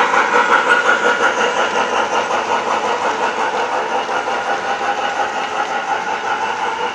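Model trains rolling past on layout track: a steady mechanical running noise of electric motors and wheels that slowly gets quieter.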